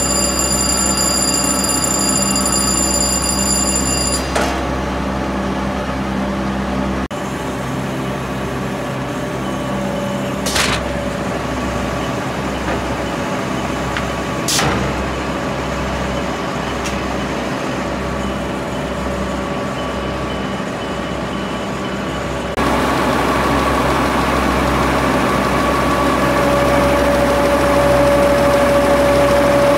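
A 1993 Sanden 851 six-colour web offset printing press running, a steady mechanical drone with a few constant whining tones. Three sharp clicks come at about four, ten and fifteen seconds in, and the sound steps louder about two-thirds of the way through.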